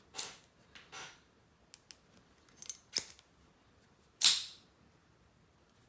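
Handling and polishing noise from a metal sonic screwdriver prop being rubbed with a cloth: a few light clicks and taps, and short swishes of cloth on metal, the loudest a brief swish about four seconds in.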